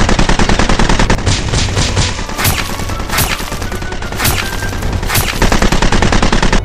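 Rapid automatic gunfire sound effects: a stream of fast shots, then several separate bursts, the last and longest near the end.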